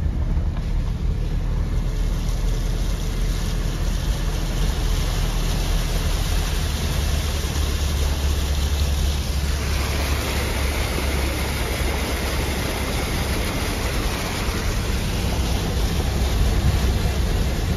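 Car driving slowly through floodwater: a steady low engine and road rumble, joined about halfway through by a louder hiss of water sprayed up by the tyres.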